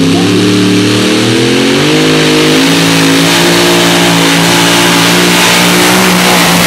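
Light modified pulling tractor's V8 engine revving up over the first couple of seconds, then held at high, steady revs as the tractor starts its pull.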